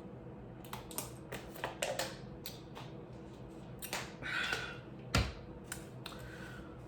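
Close-miked eating: a string of sharp, wet mouth clicks and small crunches from chewing food, with one low thump just after five seconds.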